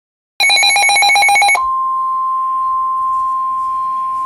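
A short burst of rapidly pulsing, buzzing electronic tones, then, about a second and a half in, a single steady alert tone that holds on: the warning alarm tone of an Emergency Alert System weather broadcast announcing a severe thunderstorm warning.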